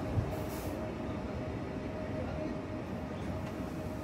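Pesa Dart (ED161) electric multiple unit running at the platform with a steady electric hum and low rumble. A short hiss comes about half a second in.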